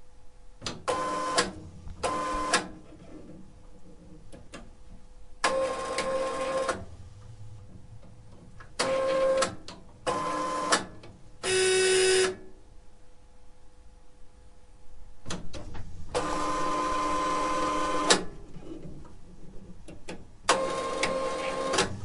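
DTG garment printer running a head-cleaning cycle: about eight separate bursts of motor whirring, mostly a second or less, with one longer run of about two seconds later on, and quieter mechanical clicks between them over a faint steady hum.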